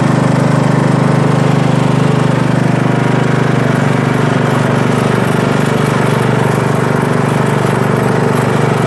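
Craftsman T100 riding lawn tractor's engine running steadily at raised throttle as the tractor drives forward, with the mower blades disengaged.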